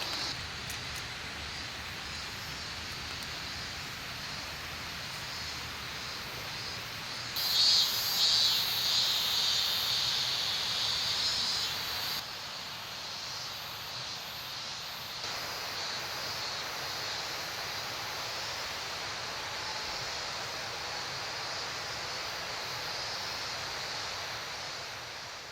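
Forest ambience with insects shrilling steadily, growing louder and brighter for a few seconds about a third of the way in, then fading out at the end.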